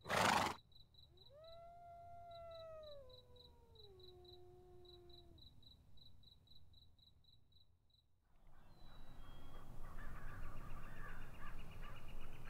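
Crickets chirping in a steady, even rhythm, cut into at the start by a brief loud burst of noise. A single long howl, falling in pitch in steps, carries over them for about four seconds. About eight seconds in the crickets stop and birds start calling.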